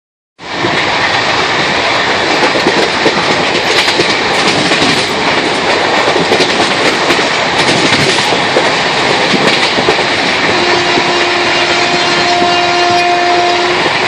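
Passenger train running, heard from inside a moving carriage: a steady rumble of rolling noise with scattered wheel clicks. About ten and a half seconds in, a steady horn tone starts and holds for about three seconds.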